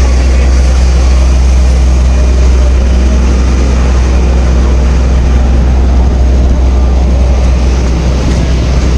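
A loud engine running steadily with a low hum, under an even rushing noise.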